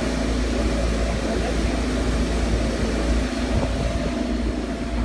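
Spindleless veneer peeling lathe running, peeling a pine log into thin face veneer: a steady machine drone with a strong low hum and a few steady tones above it.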